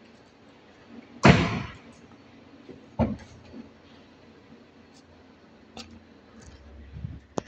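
An Opel Corsa B's door slammed shut about a second in, echoing off the concrete of the covered parking area, followed by a softer thump two seconds later. Near the end, a low rumble builds and ends in a sharp click.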